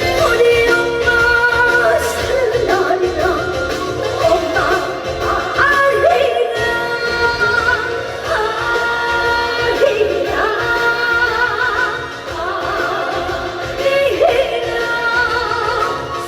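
A woman singing a Korean trot song live, her voice wavering with vibrato over instrumental accompaniment.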